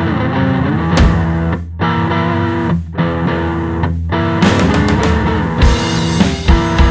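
Electric guitar and drum kit playing rock: distorted guitar chords ring out with short breaks between them, with a single drum hit about a second in. The drums come in with repeated hard hits about four and a half seconds in.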